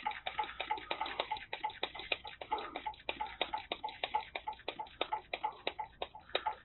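Hand-squeezed vacuum brake bleeder pump clicking rapidly and evenly as it is pumped, pulling vacuum on a rear brake caliper bleeder that passes no fluid.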